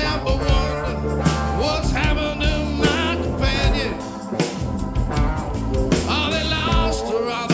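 Live rock band of drums, bass guitar, electric guitar and keyboards playing a bluesy groove, with steady drum hits under a held bass and a lead line that wavers and bends in pitch above.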